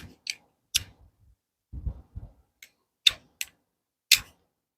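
Steel knife scraping down a ferrocerium rod in short, sharp strikes: three in quick succession, then three more after a pause. Dull knocks come in between. The strikes are not throwing sparks.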